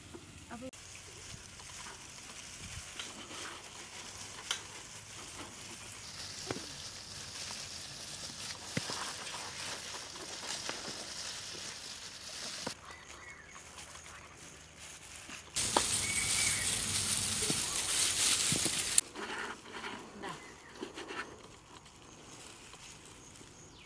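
KitKat chocolate wafer bars snapped and crumbled by gloved hands onto a steel plate: scattered small crisp cracks over a steady crackle and plastic-glove rustle, with a louder crackling stretch about two-thirds of the way through.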